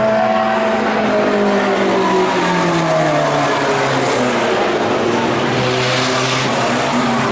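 Engines of several Mini-class dirt-track race cars running at speed around the oval. Their pitch falls and rises as they lap past.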